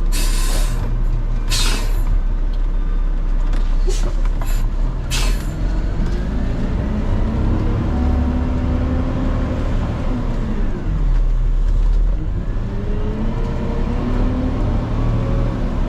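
Diesel truck's air system hissing in four short bursts, then the engine revving up as the truck pulls away, dropping at a gear change about eleven seconds in and climbing again.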